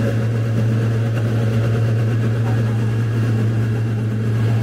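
Boat engine running at a steady pace, a low, even drone.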